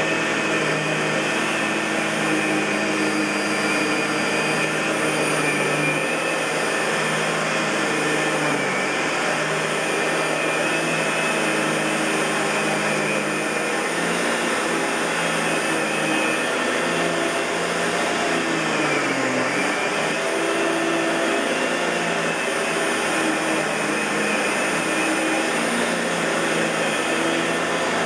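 Fantom Lightning LC56-00 bagless canister vacuum cleaner running steadily: an even rush of air over a motor hum and whine. About two-thirds of the way through, its pitch dips briefly and comes back up.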